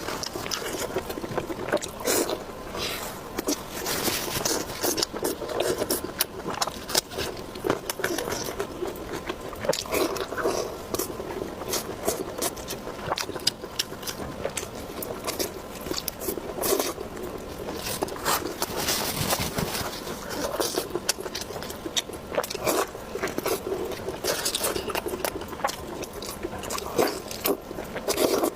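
Close-miked eating: a person biting and chewing food, with continual wet mouth sounds and small crisp clicks.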